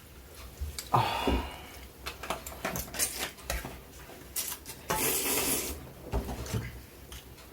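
Forks clinking and scraping against bowls while ramen is eaten: scattered light clicks and knocks, the loudest about a second in, and a short hissing noise about five seconds in.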